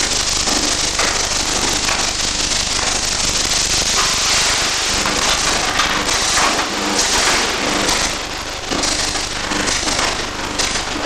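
Welding arc crackling and sputtering steadily, a dense sizzling crackle that dips briefly about eight seconds in.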